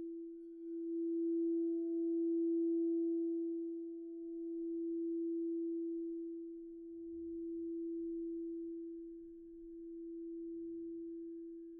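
An 8-inch quartz crystal singing bowl tuned to E (Mi) ringing with one steady pure tone. It dips briefly about half a second in, then swells again and slowly fades, pulsing in loudness about every three seconds.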